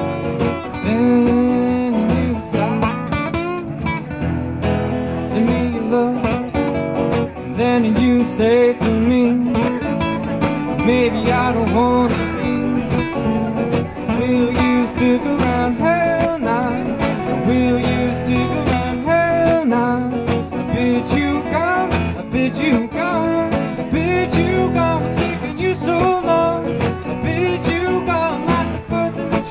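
Acoustic guitar music from a guitar duo, strummed chords under a melody line that bends up and down.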